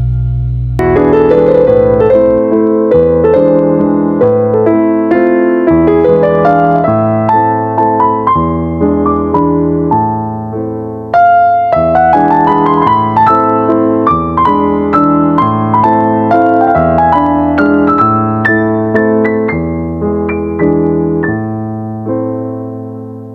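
Background piano music: a gentle melody of struck notes over slow bass notes, pausing briefly about 11 seconds in and fading out near the end.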